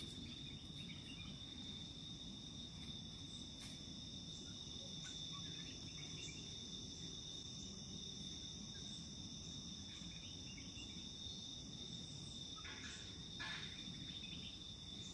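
Steady high-pitched insect drone, one continuous buzzing chorus with no break, over a low background rumble, with a few brief chirps near the end.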